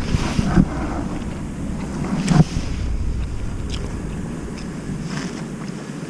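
Wind buffeting the microphone, a low rumble that drops away sharply near the end. A few light knocks, the loudest about two and a half seconds in.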